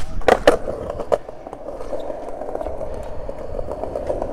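Skateboard trick: a few sharp clacks of the board hitting the concrete in the first second, then the wheels rolling steadily over concrete.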